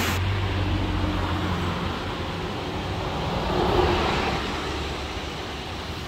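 Steady rush of a storm-swollen, muddy creek pouring over rapids, with a low hum in the first second and a half.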